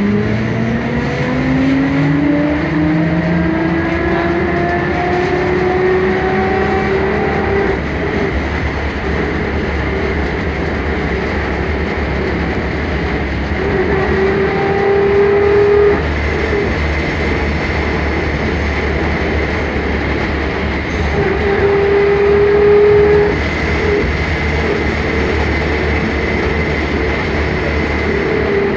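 Škoda 15Tr03/6 trolleybus heard from inside the passenger cabin. Its electric traction drive whines, rising in pitch as it pulls away over the first several seconds. The whine returns twice later as a steady tone under power and cuts off suddenly each time, all over the steady rumble of the ride.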